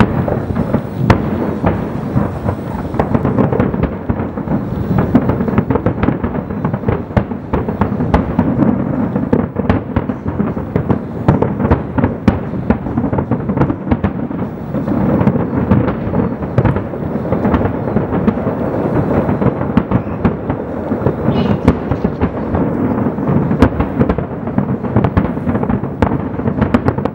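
Fireworks finale: many aerial shells bursting in a dense, continuous barrage, a steady rumble of booms with many sharp cracks over it.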